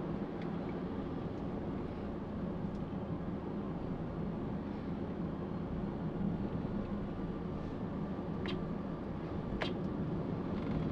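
Steady engine and road noise of a Toyota Calya on the move, heard from inside the cabin, with two brief clicks about a second apart near the end.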